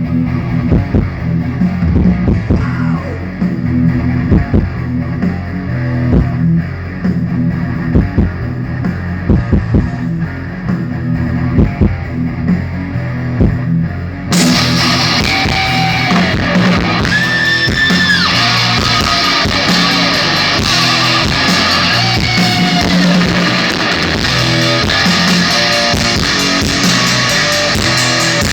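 Thrash metal band playing live, recorded with poor sound quality: distorted electric guitars, bass and drums, muffled at first. About halfway through the sound suddenly turns brighter and fuller, with bent guitar notes.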